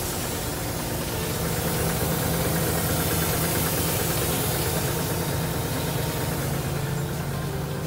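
Hino Profia heavy truck's diesel engine idling steadily.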